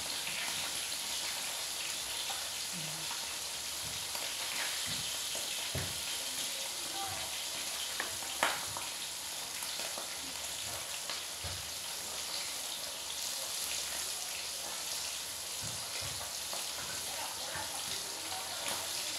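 Soup broth simmering in a pan on a gas stove, a steady bubbling hiss, while a spatula stirs it with a few light taps against the pan, the sharpest one about eight seconds in.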